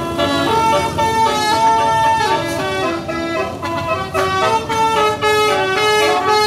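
Bus telolet horn, a multi-trumpet musical air horn, playing a tune of held notes that change pitch every fraction of a second.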